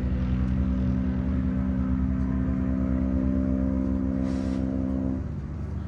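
A motor running at a steady pitch over a low rumble, stopping about five seconds in.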